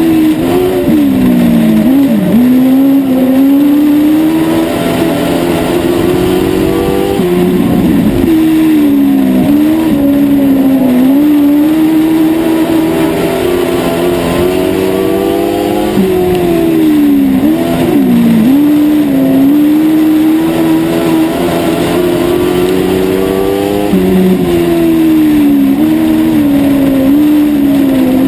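Dwarf race car's motorcycle engine at racing revs, heard on board: four times its pitch drops as the driver lifts for a turn, then climbs steadily back up along the straight, about every eight seconds, lap after lap.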